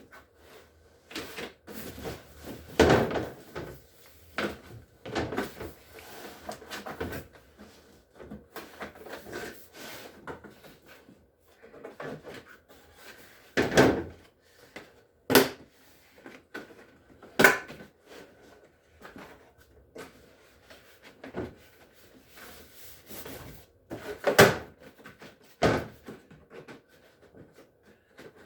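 A cardboard box and its packaging being handled and unpacked: irregular knocks and clunks as pieces are moved and set down, with rustling in between.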